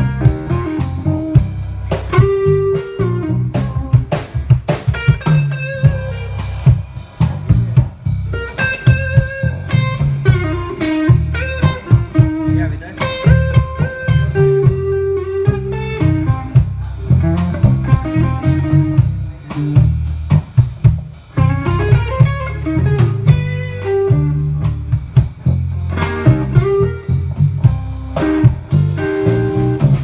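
Live band of electric guitar, bass guitar and drum kit playing together, with melodic lead-guitar lines over a steady bass and drum groove.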